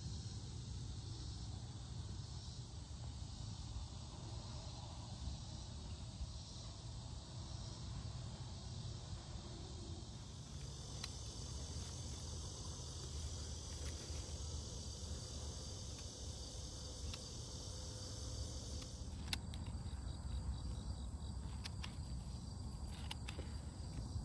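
Insects chirping: a pulsing chirp about twice a second, changing about ten seconds in to a steady high buzz, over a low rumble. Near the end come a series of sharp clicks from hand pruners snipping spent marigold heads.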